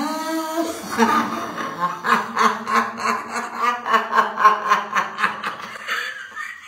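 An elderly woman laughing hard: a long run of quick 'ha-ha' pulses, about three or four a second, tapering off near the end.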